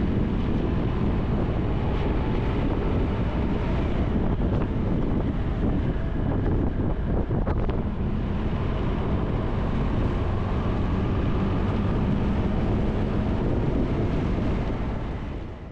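Motorcycle riding along at road speed: the engine running steadily under a rush of wind on the microphone, fading out near the end.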